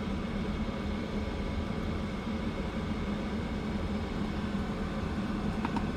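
Steady hum and fan whir of an Hcalory diesel air heater running, even and unchanging.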